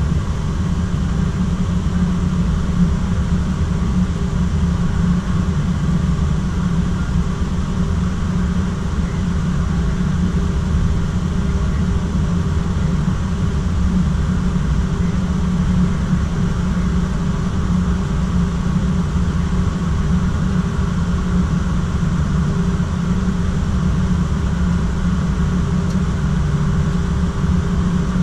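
Airliner's engines idling, heard inside the cockpit as it taxis slowly: a steady low drone with a faint constant tone above it.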